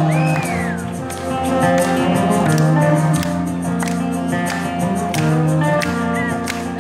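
Live rock band music: an acoustic guitar strummed together with a double-neck electric guitar, recorded from within the audience.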